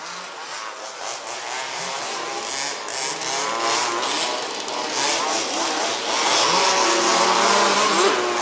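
A field of 1/5-scale two-stroke petrol RC buggies revving and accelerating together, several engine notes wavering up and down over each other and growing louder from about three seconds in.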